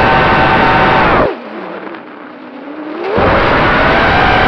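Brushless motors and propellers of a Shendrones Krieger mini racing quadcopter whining at high throttle. About a second in the whine drops away sharply, its pitch sagging as the throttle is cut. About three seconds in it climbs back up to full throttle.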